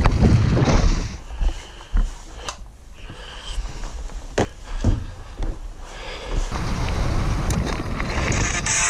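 Mountain bike rolling fast over a dirt trail: tyre roar, frame and drivetrain rattle and wind on a helmet camera. It drops away about a second in to a quieter stretch with a few sharp knocks, then the riding noise builds again near the end.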